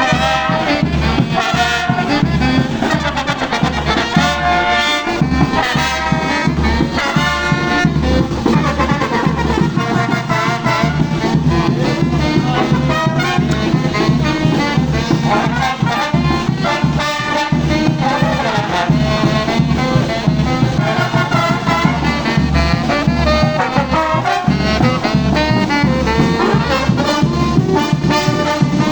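Brass orchestra of trumpets and trombones playing over drums with a steady beat.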